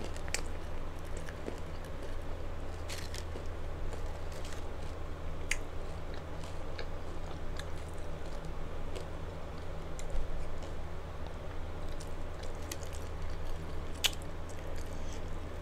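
Close-miked chewing and crunching of an Old El Paso Bold Cheese hard corn taco shell, with scattered sharp crunches, the clearest about 3 s in and near the end, over a steady low hum.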